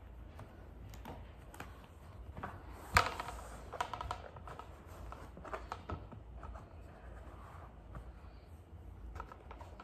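Handling noise of a plastic mannequin torso and fabric: scattered light taps, clicks and rustling, with one knock about three seconds in, the loudest sound, as the mannequin is stood upright.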